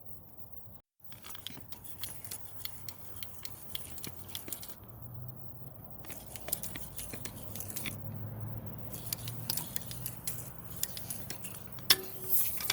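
Bicycle tyre and wheel being handled and worked onto the rim: irregular small clicks, ticks and rubbing of rubber on metal, with a sharper click near the end.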